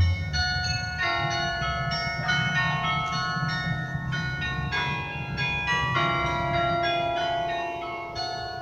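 Bells of the 1941 Joseph Dill Baker Memorial Carillon playing a tune: many bells struck one after another, their tones ringing on and overlapping, with a deeper bell held from about six seconds in.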